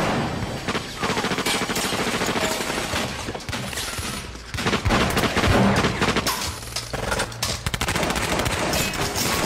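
Heavy automatic gunfire in rapid bursts of shots, briefly easing just after four seconds in and loudest about five to six seconds in.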